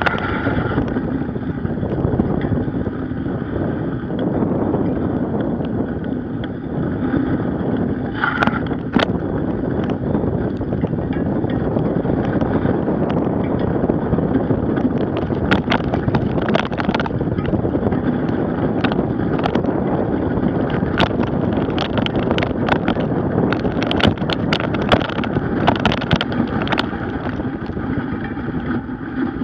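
Knobby bicycle tyre rolling over packed snow, a steady rolling noise with wind on the microphone, broken by scattered sharp clicks and rattles that come more often in the second half.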